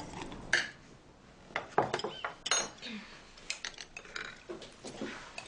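Plates and cutlery clinking irregularly on a table: scattered light knocks and clinks of crockery.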